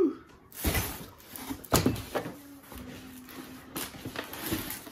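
Items being handled in a cardboard box: a rustling swish about half a second in, then a sharp knock near two seconds, followed by quieter rummaging.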